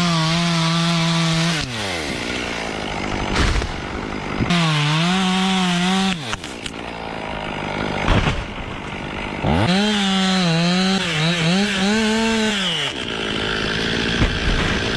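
Two-stroke chainsaw running at high revs and cutting into a tree trunk, its pitch dipping and recovering as the chain bogs in the cut. The sound changes abruptly several times, as different clips follow one another.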